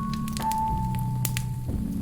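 Slow, gentle music of long held notes over a sustained low chord, with a new, lower note about half a second in. Under it, the sharp crackles and pops of a burning wood fire.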